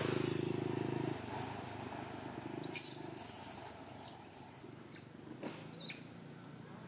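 A steady low engine-like hum cuts off about a second in. A few seconds in come several short, high-pitched animal squeals that slide up and down in pitch, followed later by a couple of fainter chirps.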